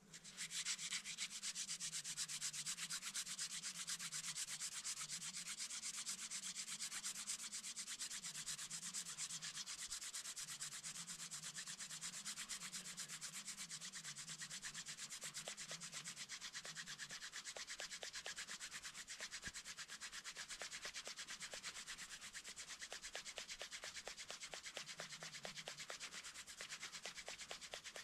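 Friction fire-making with a hand drill: a grass tree flower-stalk spindle spun rapidly back and forth between the palms, its tip grinding against the wooden hearth in a fast, continuous rubbing.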